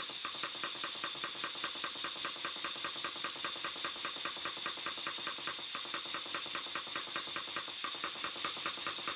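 Compressed air hissing from a blow gun into the steam chest of a model Southworth 12-inch steam pump under test, with a rapid, even chatter of roughly ten beats a second.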